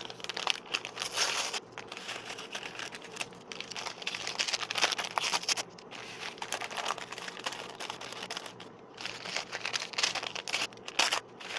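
Paper instant-oatmeal packets crinkling and rustling as they are opened and dry rolled oats are shaken out into a glass mixing bowl, with irregular crackles and light clicks throughout.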